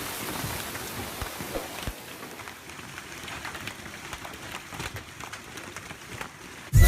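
Rain falling, a steady hiss with scattered patter that slowly gets quieter. Loud electronic music cuts in right at the end.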